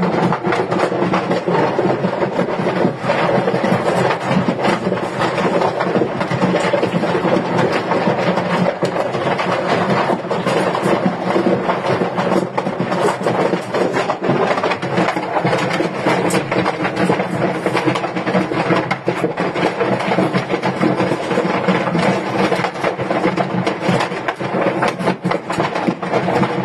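A large fire burning: a steady rushing noise thick with crackling and popping.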